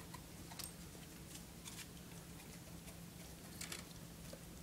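Faint, scattered clicks and taps from a dog nosing and licking at snow on a wooden floor.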